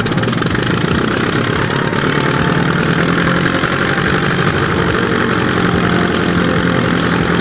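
Light aircraft's piston engine running steadily.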